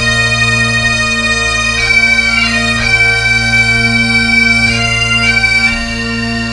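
Bagpipe music: a steady low drone under a chanter melody that moves between held notes.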